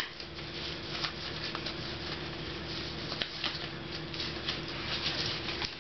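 Rustling and crinkling with scattered light clicks as gloved hands handle and open resin-wetted fiberglass cloth, over a steady low hum.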